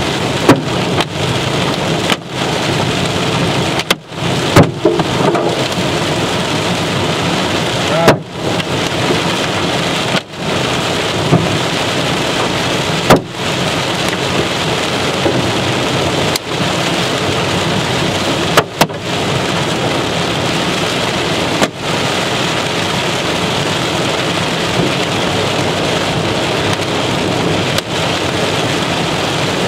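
Large hail, estimated at teacup to baseball size, hammering a vehicle's roof and windshield, heard from inside the cab. A dense, steady pounding is broken by a few much louder single strikes, such as the one about a second in.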